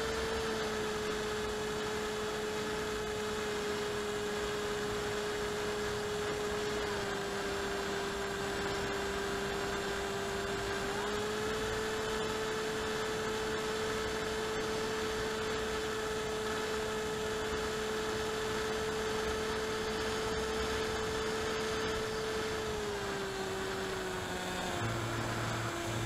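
RC model aircraft's motor and propeller, heard through the onboard camera as a steady humming drone with a windy hiss. Its pitch dips slightly about seven seconds in, rises again about four seconds later, and falls near the end as the throttle comes back for landing.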